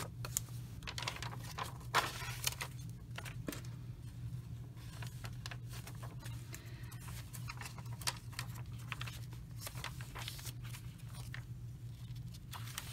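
Paper pages of a handmade junk journal being turned and handled: a run of light rustles and small crinkles, a few sharper ones about two seconds in, over a steady low hum.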